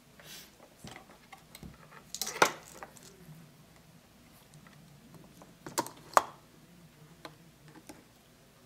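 Hands handling insulated wires and a white plastic sleeve: scattered small clicks and rustles, loudest in a cluster about two and a half seconds in and in two sharp clicks around six seconds in.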